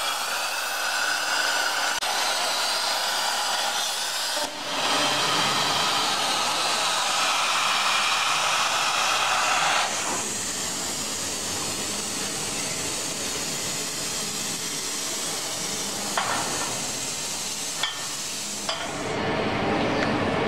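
CNC plasma cutter torch cutting thick steel plate, powered by a Huayuan plasma power source: a steady, loud hiss of the arc and compressed air, with a short break about four seconds in. From about ten seconds in the hiss is quieter, with a couple of sharp clicks, and it changes near the end.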